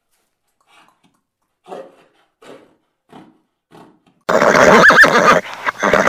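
A few faint, evenly spaced taps, then a horse whinnying loudly, starting suddenly about four seconds in with a call that rises and falls in pitch.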